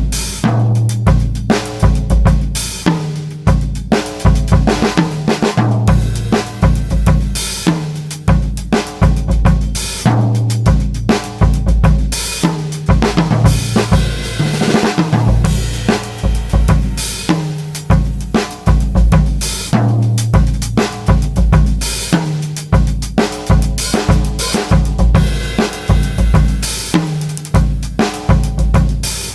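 Pearl Midtown compact drum kit played as a continuous groove with maple sticks: 16-inch bass drum, 13-inch snare, toms and cymbals struck in a regular rhythm, recorded without EQ.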